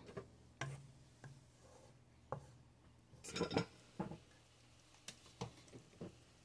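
Quiet, scattered clicks and knocks of cookware and utensils being handled at the stove, with the busiest cluster about three seconds in.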